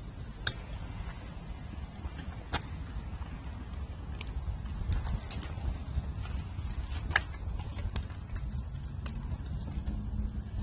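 Irregular sharp crackles and pops from charcoal and newspaper burning in a chimney starter, over a steady low rumble.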